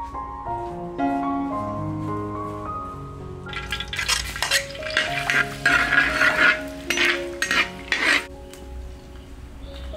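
Chopped aromatics sizzle as they hit hot oil in a steel wok and are stirred with a metal spatula that scrapes and clinks against the pan. The sizzling starts about three and a half seconds in and stops a little after eight seconds, over background music.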